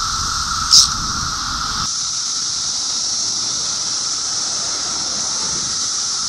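Chorus of Brood X periodical cicadas singing in the trees: a loud, continuous drone with a lower hum and a higher hiss-like buzz. A brief louder high burst cuts in about a second in.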